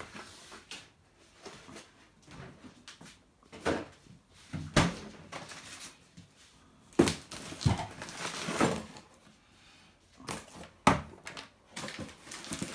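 Kitchen handling noise: about half a dozen separate knocks and clatters, with quiet stretches between them.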